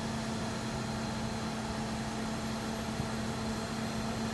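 Big crane's diesel engine running steadily as it hoists a load, a constant hum that holds one pitch.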